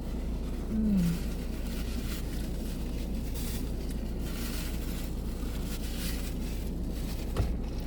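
Eating sounds, chewing and rustling of food, over a steady low rumble inside a car. A short falling hum about a second in, and a sharp click near the end.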